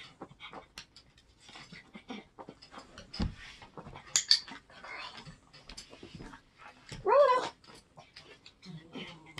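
Miniature schnauzer rolling up a rubber yoga mat on a hardwood floor: a steady run of small ticks and scuffs from its claws and the mat, a thump about three seconds in, and a short wavering whine from the dog a little after seven seconds, the loudest sound.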